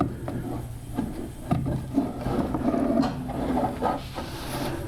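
Knocks and wood rubbing on wood as a screw is worked back into its hole through a wooden crosscut-sled fence.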